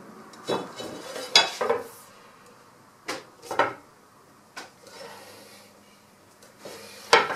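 Aluminum tubing clanking and scraping against a plywood bending form and bench top as it is shifted and pulled into a curve: about half a dozen short knocks and scrapes at uneven intervals.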